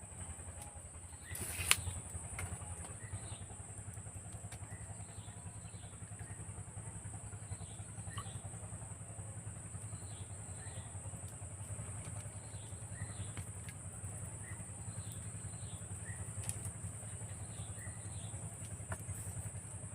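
Rural outdoor ambience: a steady high-pitched drone like insects, short chirping calls repeating every second or so, and a low rumble underneath. A sharp knock comes about two seconds in.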